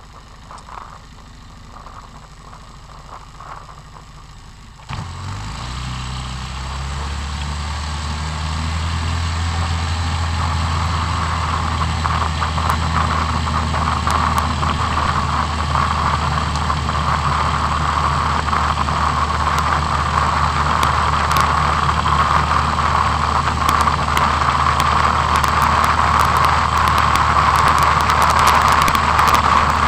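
Quad bike (ATV) engine running quietly, then about five seconds in it suddenly gets louder as the quad gets under way. It keeps running steadily, growing gradually louder as it drives along a dirt track.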